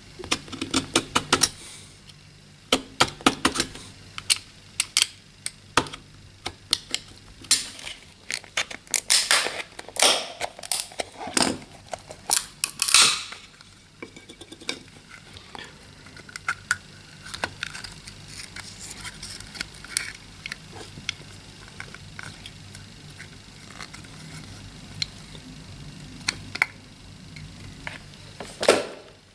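Clicks, taps and scrapes of hand tools on the plastic case of a small AC/DC power adapter as it is worked open, busy and irregular for the first half and sparser afterwards.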